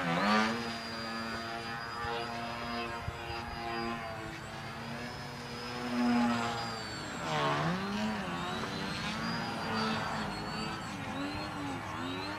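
Electric motor and propeller of a Twisted Hobbys Crack Yak RC 3D aerobatic plane buzzing, with a thin high whine above. The pitch changes with the throttle: it holds steady at first, drops sharply and climbs back about seven and a half seconds in, and wavers quickly up and down near the end.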